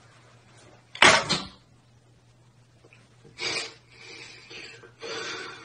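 Short sudden noises over a faint low steady hum: the loudest about a second in, a smaller one at about three and a half seconds, and fainter ones near the end.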